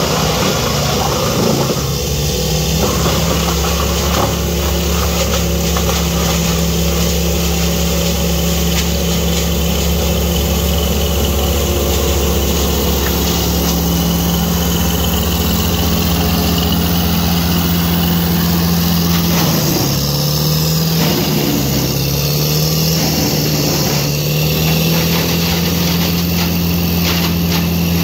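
Vermeer BC1500 brush chipper running steadily, blowing wood chips through its discharge chute into a chip truck's box. The engine's pitch dips briefly about twenty seconds in, then comes back up.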